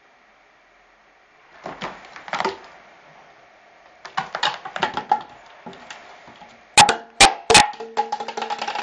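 Scrabbling knocks of a cat climbing a sisal-covered cat tree, then a plastic Diet Coke bottle knocked off it: three loud hollow bangs as it hits and bounces on the parquet floor about seven seconds in, then a quick rattling clatter as it rolls.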